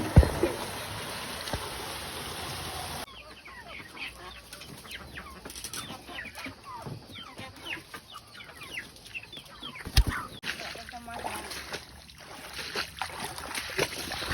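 Chickens clucking, many short calls one after another, following about three seconds of steady hiss that cuts off sharply. A single sharp knock about ten seconds in.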